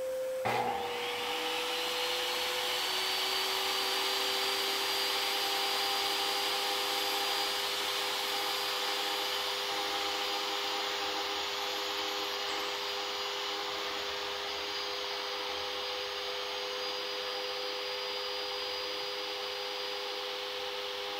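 Table saw switched on about half a second in with a click, its motor spinning up to a steady whine and hum that runs on while a wood strip is fed through on a taper jig. A second steady motor hum is already running beneath it.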